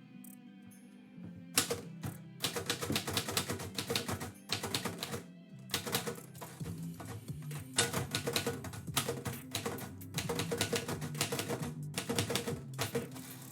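Typewriter being typed on in fast runs of keystrokes, starting about a second and a half in, with short pauses between runs, over background music.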